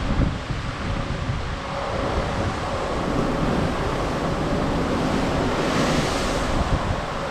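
Sea rushing past a moving cruise ship, with wind gusting on the microphone; a wave wash swells up about six seconds in.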